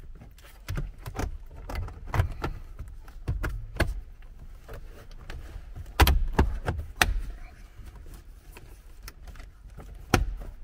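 Plastic centre dash trim panel of a Toyota HiLux being pushed back into place by hand: a series of clicks and knocks as its clips snap in. The loudest is about six seconds in, and there is another sharp one near the end.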